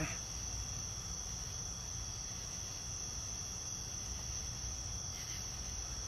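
Night chorus of crickets, a steady high-pitched trill, with a low steady hum underneath.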